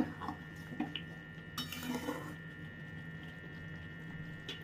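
A spatula stirring curry in a metal kadai, knocking and scraping against the pan a few times in the first two and a half seconds, with one more sharp knock near the end. A faint steady hum runs underneath.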